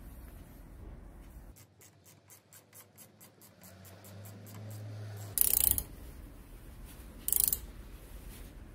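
Ratcheting combination wrench clicking quickly, about six clicks a second, as it runs the air inlet fitting down into a jackhammer body. Then two short, louder metal-on-metal rasps, a few seconds apart.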